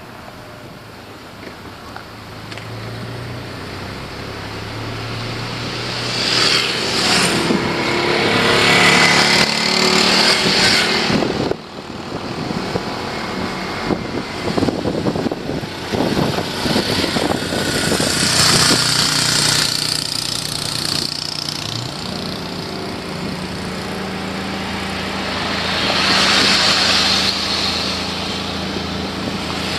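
Motor vehicle engines running and passing, a steady engine hum shifting in pitch with several swells of louder road noise as vehicles go by.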